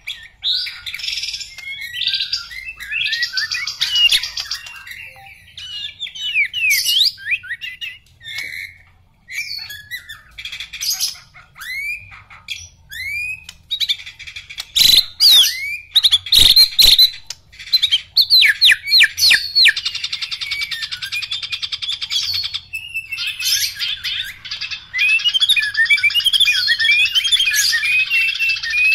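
White-rumped shama (black-legged murai batu) singing a varied song of whistled glides, slurred notes and fast chattering phrases. A few sharp knocks come about halfway through, and the song turns into a long run of rapid chattering near the end.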